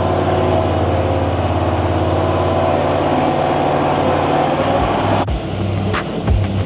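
Infront YF380 mini skid steer's engine running steadily. Near the end it cuts off suddenly and background music with a steady beat begins.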